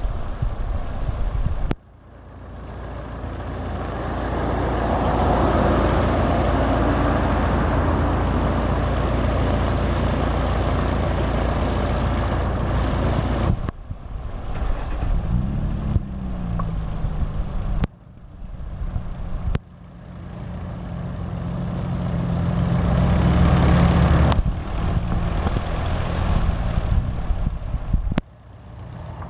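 Piper PA-28 Cherokee Warrior's piston engine running at low power with its propeller turning. The sound breaks off abruptly several times, and it swells louder for a few seconds in the second half.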